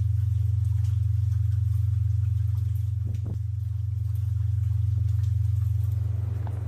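A loud, steady low hum with a fast, even pulse, with a few faint clicks about three seconds in.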